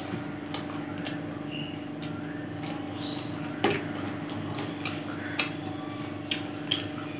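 Close-miked eating sounds: someone chewing biryani and working the rice by hand, heard as irregular sharp clicks and smacks over a steady hum. The loudest click comes about halfway through.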